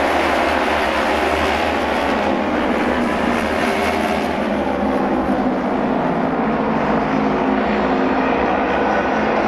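Japanese auto race motorcycles' twin-cylinder racing engines running loudly together as the bikes circle the oval track. The highest part of the sound eases off about halfway through, as the bikes slow.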